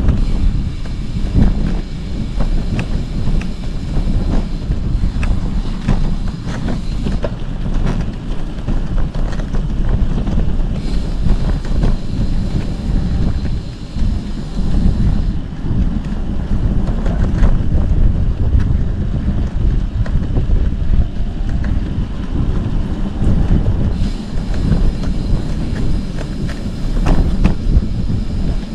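Wind buffeting the microphone over a steady low rumble of travel, with scattered light knocks and rattles.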